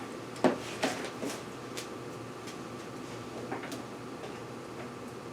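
A few sharp clicks and knocks from handling a corded electric chainsaw and its cord: one loud knock about half a second in, two more within the next second, and two lighter clicks a little past halfway. The saw's motor stays silent because its engaged chain brake cuts power to the switch.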